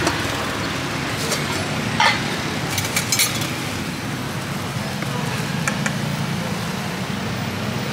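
Steady street traffic hum with a few light, sharp clinks, about two and three seconds in.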